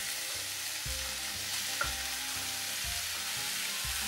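Oil sizzling steadily in a stainless frying pan where sliced leek is frying and diced bell pepper is being tipped in. One light click comes a little under two seconds in.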